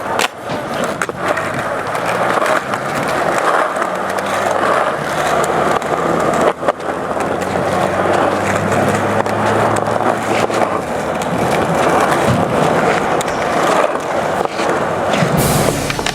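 Skateboard wheels rolling on concrete in a steady rumble, broken by a few sharp clacks of the board. Music with a deep bass comes back in near the end.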